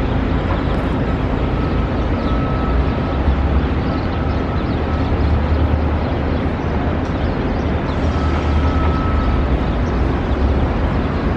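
City street ambience: steady traffic noise with a low rumble underneath.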